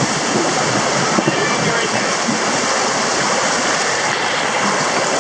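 Steady rush of water through an indoor raft water slide as the raft slides down the chute.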